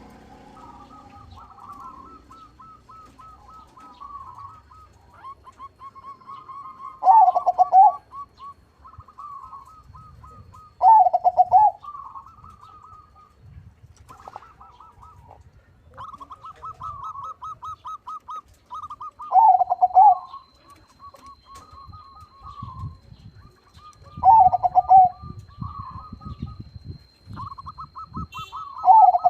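Zebra dove (perkutut, a 'crossing' local × Bangkok bird) singing. Strings of quick, trilled cooing notes are each capped by a louder, lower coo phrase, about five times, every four to five seconds.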